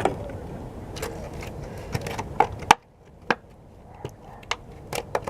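Plastic retail packaging of a small tripod being handled and opened, with scattered sharp clicks, taps and scrapes.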